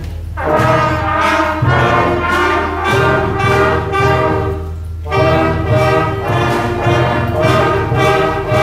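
Student concert band of woodwinds, brass and drums playing, in short phrases about a second and a half to two seconds long with brief breaks between them.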